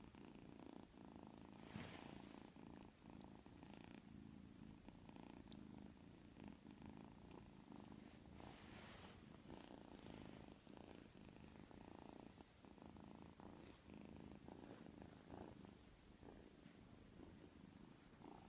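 A white kitten snoring faintly: a steady low rumble with soft breathy hisses now and then.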